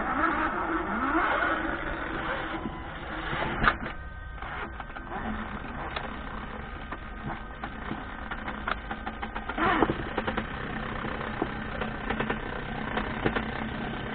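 Traxxas Summit RC truck on a 4S GoolRC 3674 1900kv brushless motor, crawling slowly while its onboard engine sound box plays a steady simulated engine note, which rises in pitch about a second in as the throttle opens. Short scattered clicks and crackles come from stones and dirt under the tyres.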